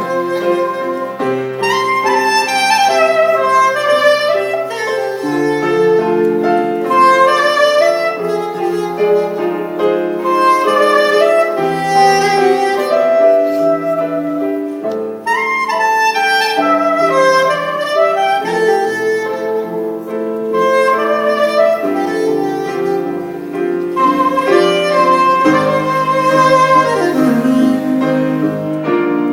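Saxophone playing a slow, legato melody with pitch glides over a backing of piano and keyboard chords.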